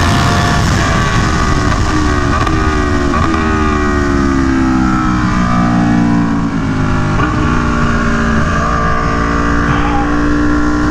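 Aprilia Tuono V4 1100's 65-degree V4 engine running hard through an SC Project CR-T exhaust, its pitch falling and rising with several quick breaks for gear changes, over a steady low rumble.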